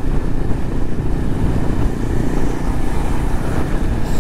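Motorcycle cruising at highway speed, heard from the rider's seat: a steady engine drone mixed with a low wind rumble.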